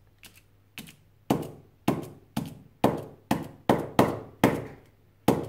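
A screwdriver tip stabbed repeatedly through the unrolled electrode sheet of an 18650 lithium-ion cell onto the mat and table beneath, a puncture test for whether the cell will catch fire. About ten sharp knocks come at roughly two a second, starting about a second in.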